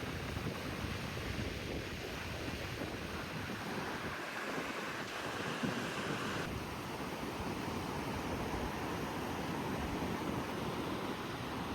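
Steady rushing of sea surf and wind outdoors, with no distinct events; the hiss eases slightly about six seconds in.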